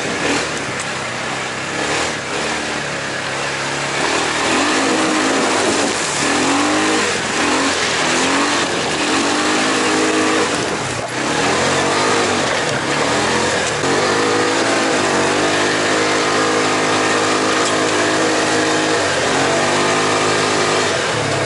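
Polaris side-by-side's engine revving hard as it is driven around, its pitch climbing and dropping again and again. For several seconds past the middle it holds a steady high speed, then falls away near the end.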